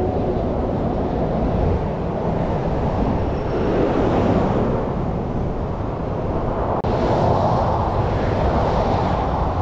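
Interstate traffic rushing past close by, a steady road roar that swells as a large truck goes by about four seconds in and again near the end.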